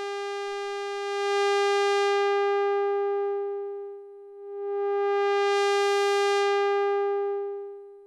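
Mutable Instruments Tides v2 Eurorack module running as an audio-rate oscillator, holding one steady mid-pitched note. Its smoothness knob sweeps the two-pole low-pass filter, so the tone goes from dull to bright and back to dull, twice.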